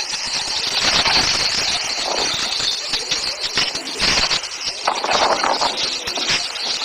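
Many birds chirping together in a dense, constant chatter.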